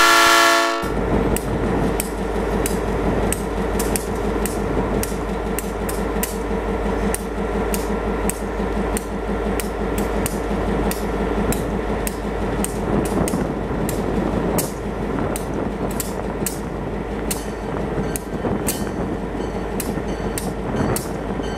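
A brief chord of steady tones lasting under a second, then a distant diesel locomotive approaching slowly: a steady low rumble with sharp clicks about twice a second.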